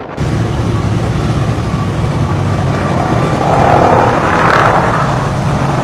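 An engine running steadily with a low hum, starting abruptly, with a rush of noise swelling and fading about three to five seconds in.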